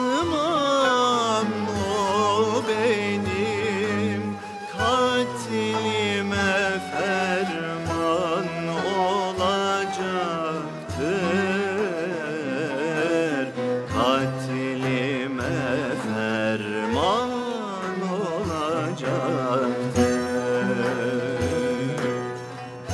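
Turkish classical music: a singer's ornamented, wavering melody over string accompaniment.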